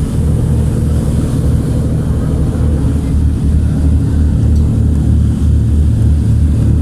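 Large passenger ferry's diesel engines droning, heard on board: a steady low hum with a regular throb.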